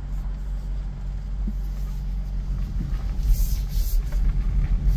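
Steady low rumble inside the cabin of a 2022 Jeep Grand Cherokee 4xe. Its gas engine is running because the plug-in hybrid has dropped out of EV-only mode into hybrid mode.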